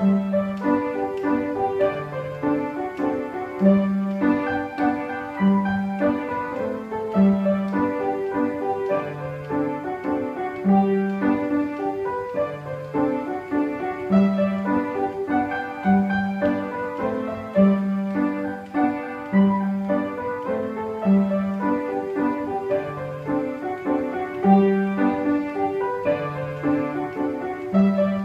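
Upright piano played throughout: a waltz in G major, a melody over bass notes that recur at an even, lilting pace.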